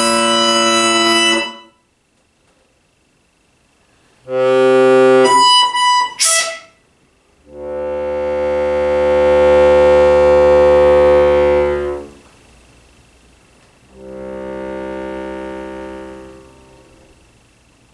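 Concert accordion playing contemporary music: held reed chords broken by silences. A short chord and a few high notes with a quick upward slide come first, then a long chord that swells louder over about four seconds and stops abruptly, then a softer chord that fades away.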